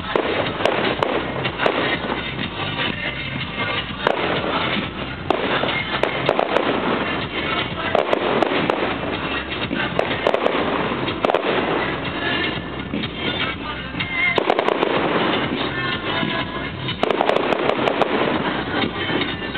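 Fireworks display going off continuously, a louder burst every one to three seconds over dense crackling.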